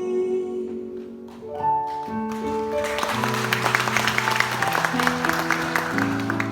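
The last sung note of the song fades out, then the accompaniment plays a closing phrase of held notes. Audience applause starts about three seconds in and carries on under the music.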